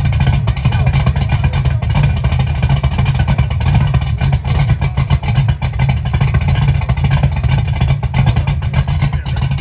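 Car exhaust running with a loud, deep, steady rumble out of the muffler tip.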